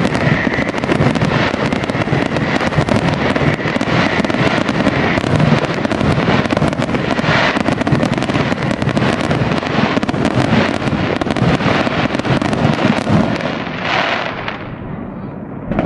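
Fireworks display: a dense, continuous barrage of crackling and popping bursts, easing off a little near the end.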